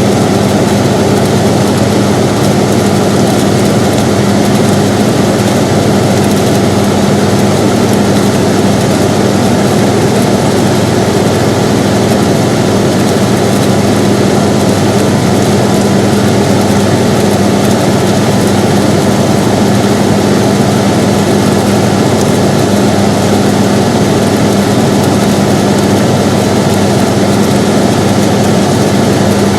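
Air conditioner running steadily: an even rushing noise with a constant low hum underneath and no change in level.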